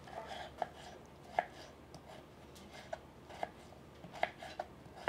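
Kitchen knife dicing raw potato on a wooden cutting board: about seven sharp taps as the blade strikes the board, unevenly spaced.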